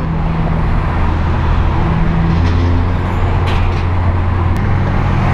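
Inside the cabin of a 2008 Acura TSX at road speed: the four-cylinder engine drones steadily under tyre and road noise. The drone changes a little about two and a half seconds in and again near the end.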